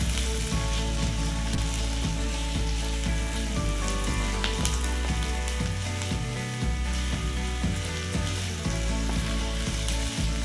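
Sliced onions sizzling as they sauté in hot oil in a metal kadai, with a wooden spatula scraping and knocking against the pan as they are stirred without pause.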